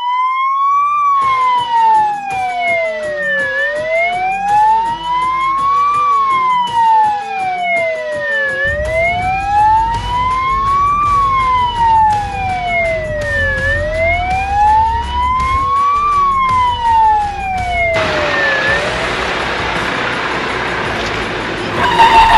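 Fire truck's electronic siren on wail, sweeping slowly up and down about every five seconds, four times over, then stopping about three-quarters of the way through. A low engine rumble comes in about a third of the way in, and after the siren stops there is a steady rushing noise of the truck driving.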